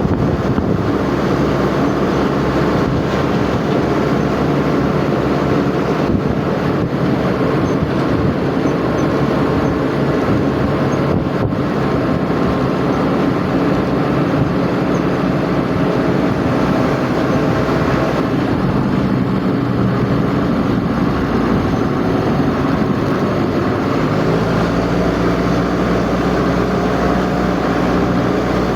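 A motor vehicle on the move: a steady engine drone with road and wind noise. The engine note changes twice in the second half.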